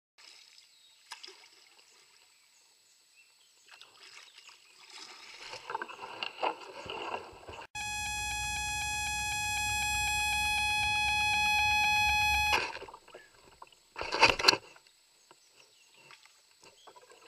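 Kayak noises: rustling and water splashes, then a steady, buzzy beep tone with a low rumble under it that starts and stops abruptly and lasts about five seconds. About fourteen seconds in comes a short, loud clatter.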